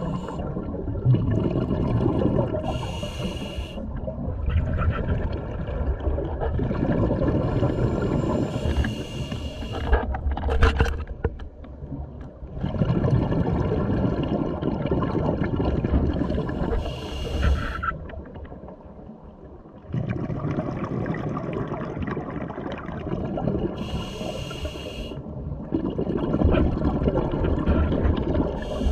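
Scuba diver breathing through a regulator underwater. About every six to eight seconds comes a short hissing inhale, five in all, and between them long bubbling exhales.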